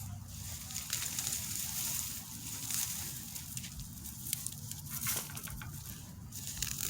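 Rustling and crackling of tomato vines and leaves being handled, with scattered sharp snaps.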